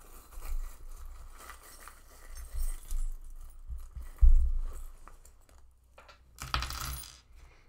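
Small metal charms jingling and clinking as they are handled and pulled for a charm reading. There is a dull knock about four seconds in and a short, louder rush of noise near the end.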